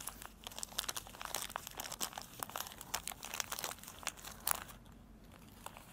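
Oil paper crinkling and crackling as hands in plastic gloves fold it, a run of small irregular crackles that thins out near the end.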